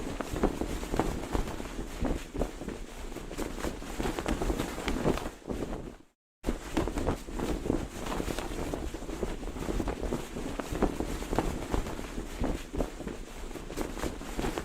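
Cloth flag flapping hard in strong wind: rapid, irregular snaps and flutters over a low wind rumble on the microphone. The sound cuts out briefly about six seconds in, then resumes.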